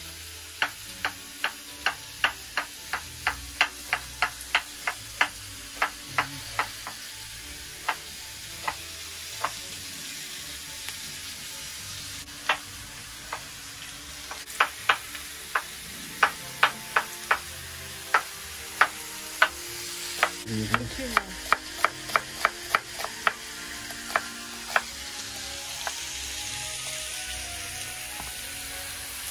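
Chef's knife chopping an onion on a wooden cutting board: sharp, evenly spaced taps about two or three a second, breaking off for a few seconds around the middle. Under them, pork ribs sizzle steadily as they fry in a pan.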